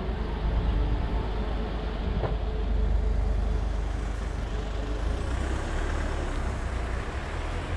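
Street traffic noise with a motor vehicle running close by, under a steady low rumble of wind on the microphone of a moving bicycle.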